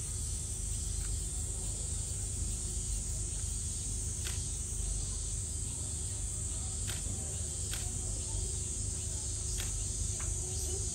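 Steady high-pitched drone of a summer insect chorus, over a low background rumble, with a few faint clicks scattered through it.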